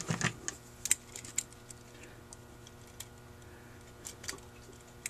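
Irregular light clicks and ticks of a small metal tool and linkage parts against a Holley 2280 carburetor body as a part is worked into place by hand.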